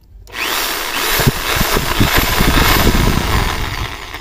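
Mitsushi 850 W corded impact drill running free at high speed in hammer mode, a loud motor whine over the rattle of the hammer action. It spins up quickly just after the start and winds down near the end as the trigger is let go.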